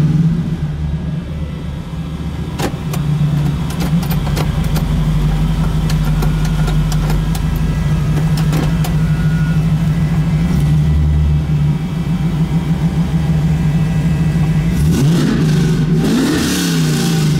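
1989 Pontiac Trans Am GTA's V8 engine running at a steady fast idle of about 2,000 rpm while parked, its pitch rising and falling briefly near the end. A few light clicks from inside the cabin.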